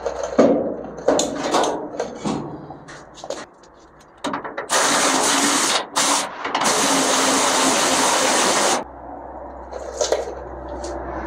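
Clinks and knocks of metal being handled, then two long hisses from a pressurized nozzle, about one second and then about two seconds long, with a brief gap between them.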